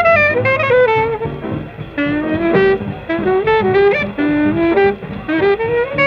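Bebop jazz from a 1949 live broadcast recording: a fast alto saxophone line of quick running notes over bass and drums, with the dull, narrow sound of an old recording.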